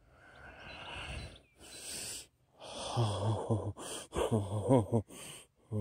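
A man breathing hard and gasping, then, from about three seconds in, short wordless voice sounds under his breath.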